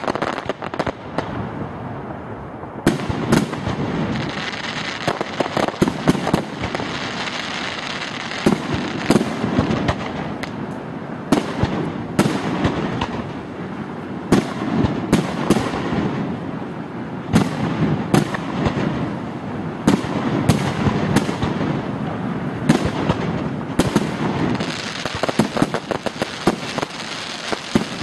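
Aerial fireworks display: shells bursting in a rapid, irregular series of bangs, with hardly a gap between them.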